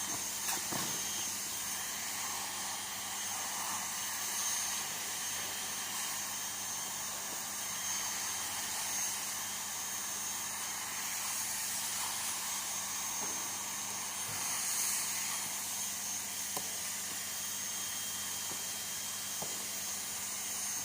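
Electric heat gun blowing hot air steadily with a high whine, softening PVC so a patch bonds to a torn canopy, with a few faint knocks from the work.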